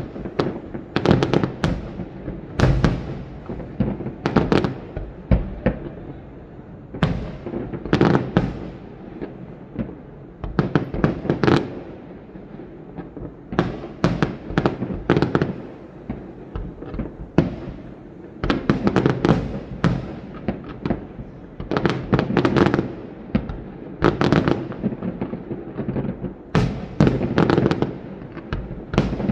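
Aerial fireworks bursting overhead in rapid volleys: sharp bangs and crackling come in dense clusters every second or two, with deep booming echoes rolling between them.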